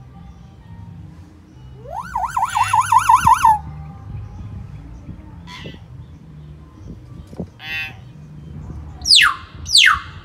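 Hill myna calls: a rising whistle that breaks into a fast up-and-down warble about two seconds in, a couple of short calls, then three loud whistles near the end, each sliding steeply downward.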